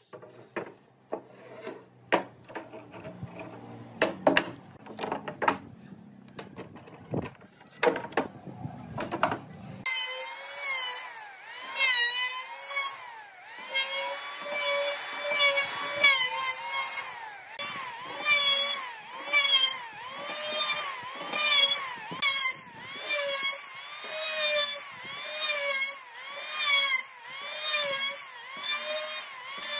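Scattered knocks and clicks for about the first ten seconds. Then an electric hand planer runs over pine boards, its whine sagging and recovering with each stroke, about one a second.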